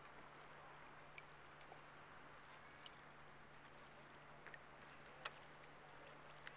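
Near silence: a faint steady hiss and low hum, with a few faint, very short ticks scattered through.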